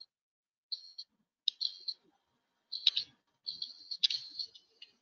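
Computer mouse and keyboard clicks heard through a conference-call microphone, in about four short clusters with dead silence between them; the last cluster, near the end, is the longest.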